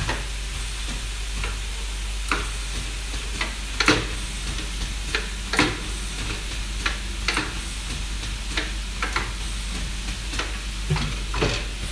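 Multi-head pad printing machine working, with irregular sharp clacks about one to two a second over a steady hiss and a low hum.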